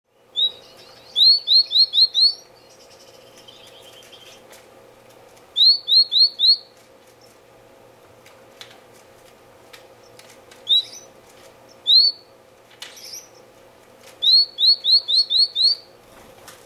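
Red-billed (Senegal) firefinch calling: short, high, rising notes, given singly or in quick runs of four to six.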